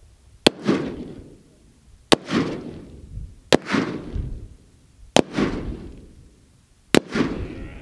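Five rifle shots from an AR-15 in .223, fired about every one and a half to two seconds, each followed by an echo that dies away over about half a second.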